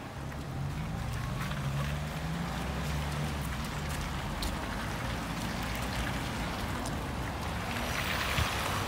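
Street traffic: a vehicle engine running with a low hum, and tyres hissing on the wet road about eight seconds in.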